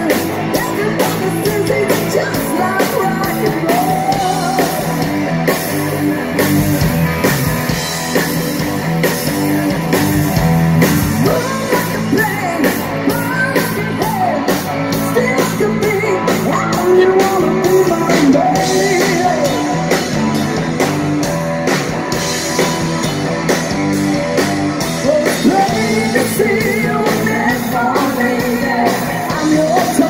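Live rock band playing: distorted electric guitars, bass guitar and a drum kit, with women singing lead and backing vocals.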